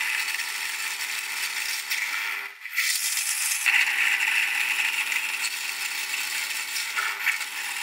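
Benchtop drill press running, its bit boring through two clamped pieces of 18 mm Baltic birch plywood for the linear-bearing holes. It runs steadily, with a short break about two and a half seconds in.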